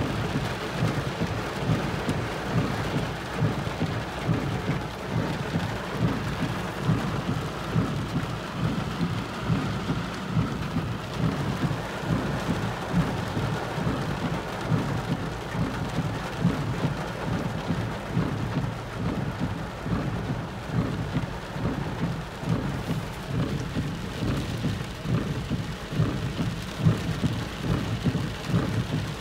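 Heavy rain pelting a car's roof and windshield, heard from inside the cabin: a dense, steady patter, strongest in the low range.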